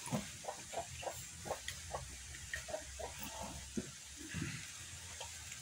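Close-miked drinking from a glass jar: a run of quick gulps and swallows, several a second, easing off after about three and a half seconds.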